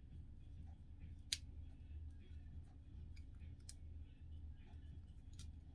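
Faint rustling of hair with three sharp clicks as a crochet hook is worked through a loc, over a low steady hum.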